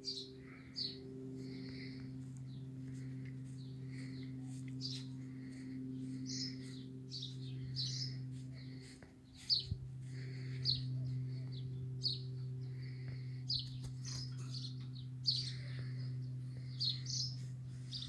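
Birds chirping in many short, high notes in quick succession, over a steady low hum.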